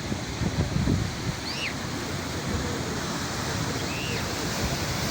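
Sea waves washing on the shore, a steady rushing noise, with wind buffeting the microphone in gusts during the first second. A few faint, short chirps sound over it, about one and a half and four seconds in.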